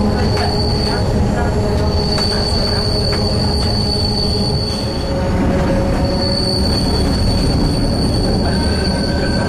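Wheels of a Genova–Casella metre-gauge train squealing against the rails: a steady high-pitched squeal over the rumble of the running train, dropping out for a moment midway before returning.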